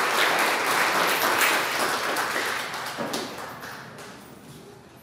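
Applause from a small group of people, the clapping dying away over about four seconds.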